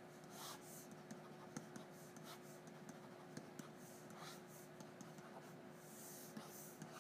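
Faint scratching strokes and light taps of a stylus writing on a tablet, over a steady low hum.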